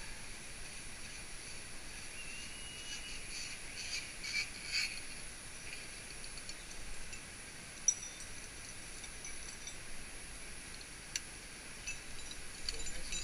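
Rainforest ambience: a steady high-pitched insect drone, with a run of short chirping animal calls a few seconds in. Two sharp clicks come later on.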